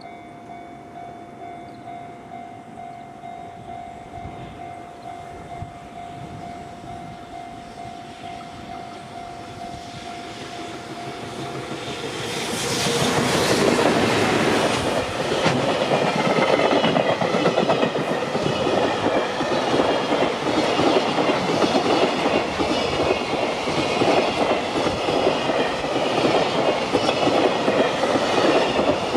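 A freight train arrives and passes close by. A steady high tone is heard until about twelve seconds in, when the train's noise swells and stays loud, with the wagons' wheels clattering over the rail joints.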